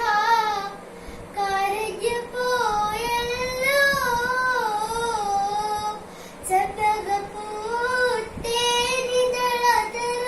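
A child singing a Mappila song solo, with a wavering, ornamented melody in phrases broken by short breaths.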